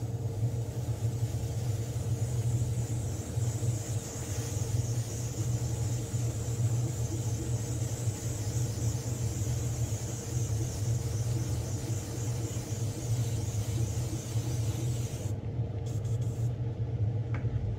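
A steady hiss of blowing air over a constant low motor hum; the hiss cuts off about fifteen seconds in, and the hum carries on.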